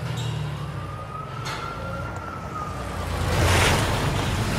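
Sports car engine idling with a low steady rumble, overlaid by a single long tone that rises slightly and falls away; a loud whoosh swells near the end.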